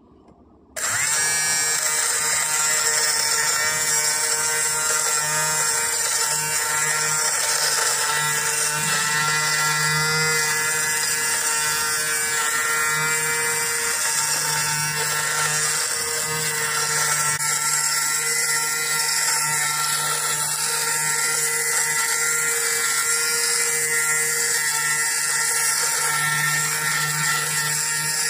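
Corded Nova electric lint remover switched on about a second in. Its small motor and rotating blades run with a steady, even whine as the head is moved over a sweatshirt sleeve.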